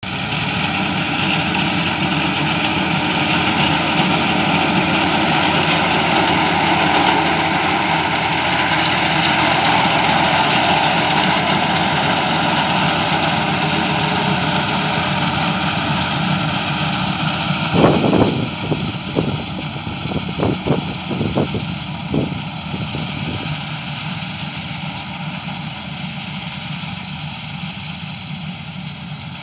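Tractor diesel engine running under load, driving a mounted power reaper that cuts standing millet stalks. A cluster of sharp knocks comes about eighteen seconds in, and the noise grows gradually quieter after that.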